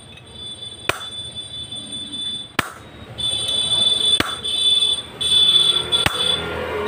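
Sharp metal knocks, four in all, about every second and a half to two seconds, as a steel rod and tube drive a new 6205 ball bearing onto a single-cylinder diesel engine's camshaft. Over them a shrill steady tone starts and stops in the background and is loudest in the second half.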